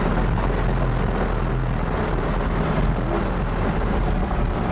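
Audi R8 on the move, heard from inside the cabin: its mid-mounted engine drones steadily under tyre and wind noise, holding an even pitch.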